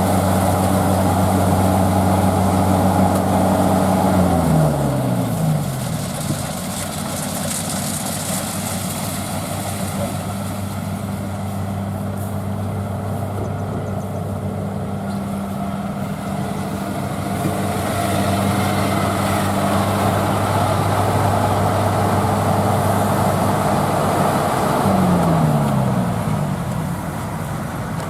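Rice combine harvester's diesel engine running steadily, its revs falling away about four seconds in and again near the end.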